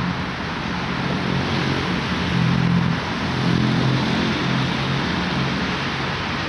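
Highway traffic: a steady rush of passing vehicles, with a low engine drone that swells about two and a half seconds in and again a second later.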